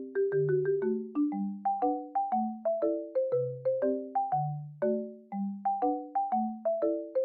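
Background music played on marimba or xylophone: a light, bouncy melody of quick struck notes over a low bass line.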